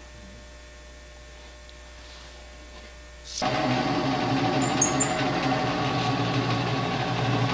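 Faint electrical hum, then a little under halfway in the tire truing machine's motor starts abruptly and runs steadily with a mechanical whir.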